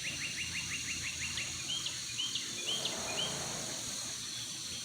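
A bird calling: a fast run of short chips, about seven a second, that stops a little over a second in, then about four separate rising chirps spaced under half a second apart. A steady high hiss lies underneath.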